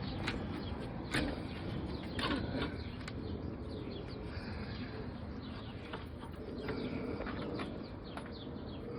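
Outdoor background noise with birds calling and a few light knocks and clicks.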